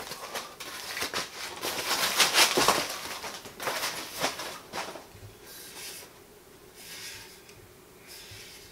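Packaging being handled and pulled away from a bike fork by hand: irregular crinkling and rustling for the first five seconds or so, then only a few quieter handling sounds.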